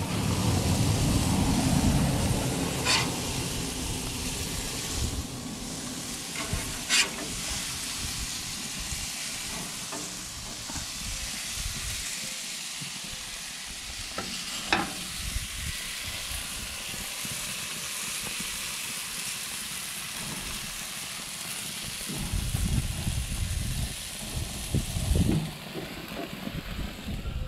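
Pollo asada chicken sizzling on a hot grill as it is flipped: a steady hiss, broken by a few sharp clicks. The hiss drops away near the end, under a low rumble.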